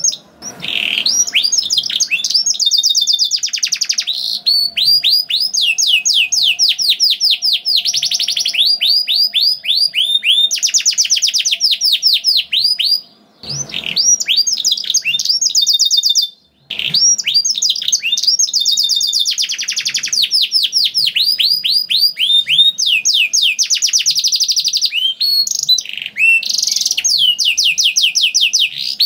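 Domestic canary singing a long, nearly continuous song of fast trilled rolls, each a rapid run of repeated high notes, with two brief breaks near the middle.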